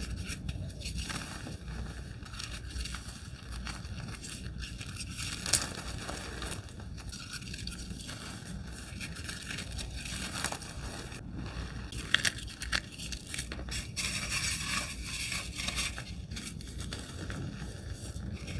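Hands crumbling and crushing blocks of reformed gym chalk into loose powder: dry crunching and crackling with a soft powdery rustle, and two sharper cracks, about five and a half seconds in and about twelve seconds in.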